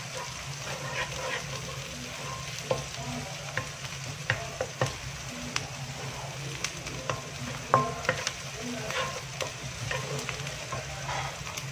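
Wooden spatula stirring and scraping sliced onions and chillies frying in oil in a non-stick wok. The oil sizzles steadily under irregular scrapes and taps of the spatula against the pan, over a low steady hum.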